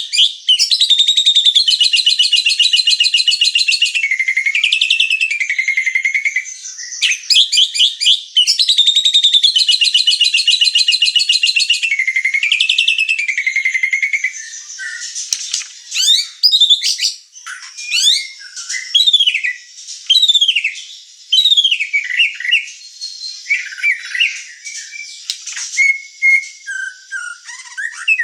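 White-rumped shama singing: two long, rapid, buzzy trills over the first half, each ending in a swooping note, then a run of separate whistled notes, many sliding downward.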